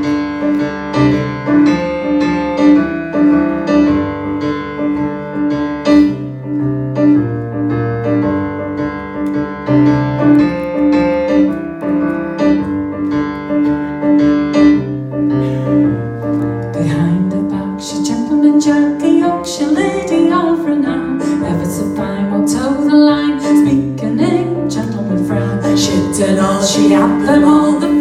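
Electric stage piano playing a folk song's introduction: a repeating chord figure over a steady held note. A woman's singing voice joins in about halfway through.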